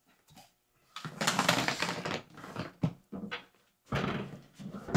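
A few thunks and rustling noises, the loudest stretch about a second in, with a sharp knock near the three-second mark.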